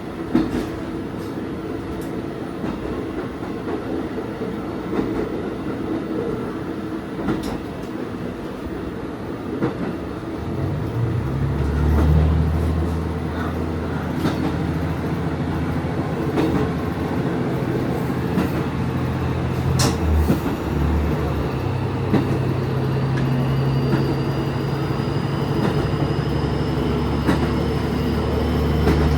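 Diesel railcar running along the track, with scattered clicks of the wheels over rail joints. About ten seconds in a steady low engine drone sets in as the engine comes under power; it dips briefly near twenty seconds and then carries on.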